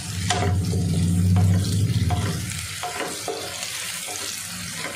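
Sliced onions and crushed garlic sizzling in oil in a nonstick wok, stirred with a spatula that scrapes and taps the pan several times. A low hum sounds under the first two seconds.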